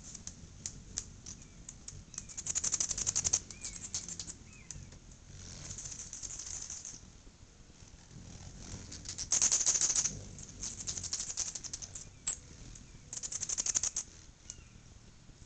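Anna's hummingbirds swarming a feeder: bursts of high, rapid buzzing and chittering from wings and calls as birds zip close past, with a few thin chirps in between. There are about five bursts of a second or two each, the loudest about ten seconds in.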